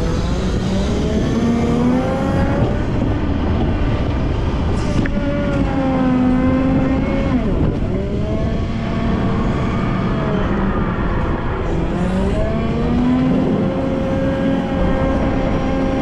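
Volvo L90F wheel loader's diesel engine working under load, its pitch rising and falling every few seconds as the revs go up and down while the loader pushes snow with its bucket.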